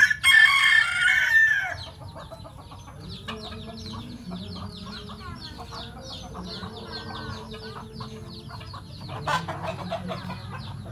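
A gamecock crows once, loud and harsh, at the start. Then a flock of chicks peeps on and on in quick, high chirps, with hens clucking lower beneath them.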